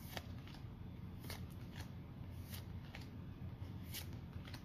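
Pokémon trading cards being flipped through by hand, each card slid from the front of the stack to the back with a short, soft flick of card stock, several times at irregular intervals over a faint steady hum.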